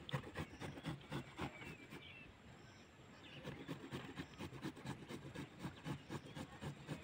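Carrots being shredded by hand with a blue tool over a plastic plate: a run of light, quick scraping strokes, about three a second, with a short pause around two to three seconds in.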